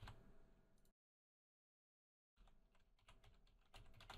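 Faint typing on a computer keyboard: a few key clicks at the start, a pause, then a quick run of keystrokes over the second half as a word is typed.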